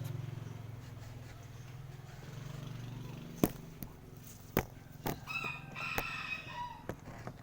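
A rooster crowing once, about five seconds in, for over a second. Before it comes a low steady hum that fades out, and several sharp knocks sound during the second half.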